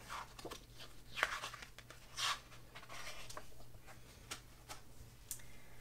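Faint rustling and swishing of paper, a picture book being handled and its pages turned, with a few light clicks.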